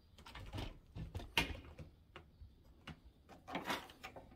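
Hands handling a bench chain grinder: a scatter of light knocks and clicks, the loudest about a second and a half in, and a short scrape near the end.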